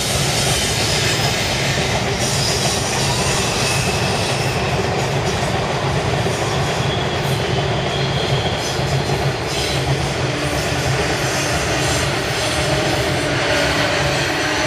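Freight train of tank wagons rolling over a concrete viaduct: a steady, loud rumble of steel wheels on rail with clickety-clack and thin, high wheel squeal.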